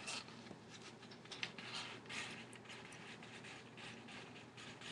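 Faint, irregular rustling and scratching of a printed paper sheet, handled and moved slowly by hand.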